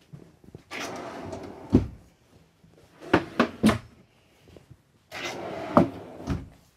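Dinette table top sliding along its extension rails, ending in a knock, followed by three sharp knocks. Near the end, a drawer under the dinette bench slides shut with a couple of thumps.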